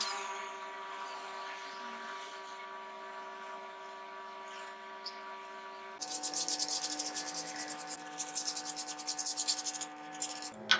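Hand sanding of wood: sandpaper rubbed back and forth in quick, even strokes, about five or six a second, starting about six seconds in and stopping near ten seconds. A faint steady drone of held tones runs underneath.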